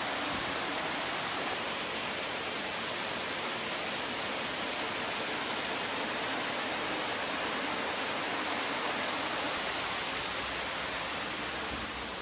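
Stream water rushing over rocks in a small cascade below a footbridge: a steady rushing that starts to fade right at the end.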